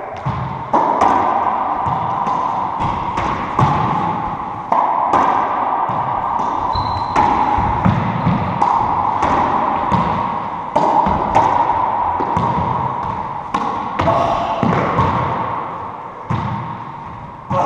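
Racquetball rally: the rubber ball cracking off racquets, walls and floor in a long run of sharp hits, each one ringing in the enclosed court. The hits stop a little before the end.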